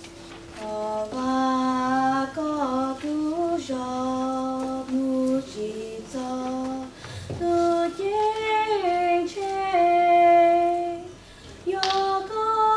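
Choir of men and women singing a slow hymn in unison, holding long notes that step up and down in pitch. The full choir comes in about a second in, with short breaths between phrases about seven seconds in and near the end.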